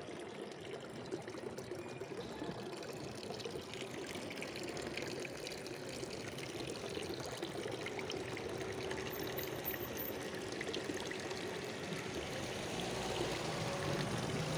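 Fountain water pouring and splashing steadily.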